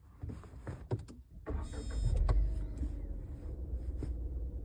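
A few light clicks, then about one and a half seconds in a Tata car's engine is cranked by the starter, catches within about a second and settles into a steady idle.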